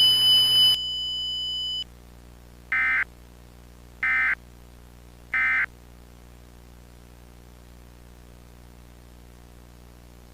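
Emergency Alert System end-of-message sequence. A high steady electronic tone steps down about a second in and stops, then come three short, identical digital data bursts about 1.3 s apart: the SAME end-of-message code that closes an EAS broadcast. A low steady hum remains after them.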